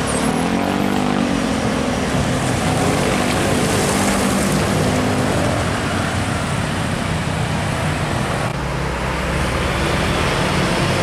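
Diesel engines of Hino 500 trucks driving past at low speed amid road traffic, the engine note swelling and easing just after the start. The sound changes abruptly about eight and a half seconds in.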